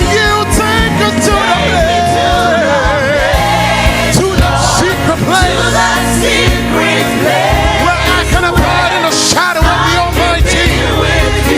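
Live gospel worship music: voices singing over a band, with steady bass notes underneath.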